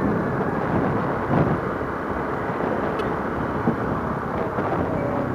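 Motorcycle on the move: a steady rush of wind noise on the microphone over the engine's rumble, with two brief knocks, one about a second and a half in and one near four seconds.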